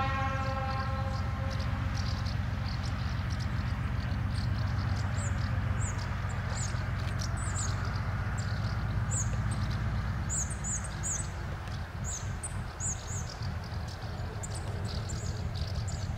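Diesel locomotive of the Soviet era working in the distance, its engine a low, steady, rhythmic throb, with birds chirping over it. A horn note fades out just at the start.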